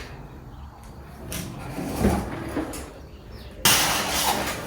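Flat-pack desk parts and packaging being handled: a few light knocks, then a sudden loud scraping slide near the end.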